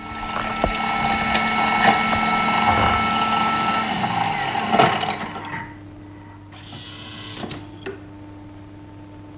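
Small electric blender running for about five seconds, grinding speculoos biscuits into crumbs, then switched off; a few light clicks follow.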